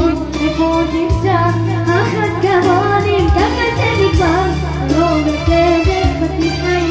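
Live Israeli Mizrahi-style pop medley: a boy's high voice sings an ornamented, bending melody into a microphone over electronic keyboard accompaniment with a steady drum beat, played through PA speakers.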